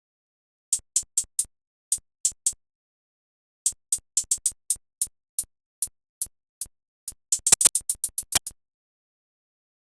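Programmed drum-machine hi-hats playing alone in an FL Studio beat: short, crisp ticks in an uneven rhythm, breaking into quick rolls about seven seconds in.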